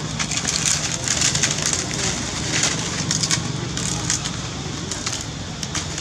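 Dry leaves crunching and crackling in quick, irregular bunches of small cracks, thickest in the first half, over a steady low hum.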